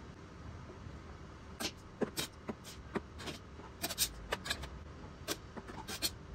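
Metal spoon clinking against a metal bowl and the plastic blender cup as pumpkin cubes are scooped and dropped in: a dozen or so irregular light taps and clicks, starting about one and a half seconds in.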